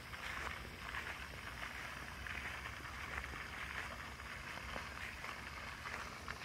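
Faint, steady outdoor hiss with a low rumble of wind on the microphone.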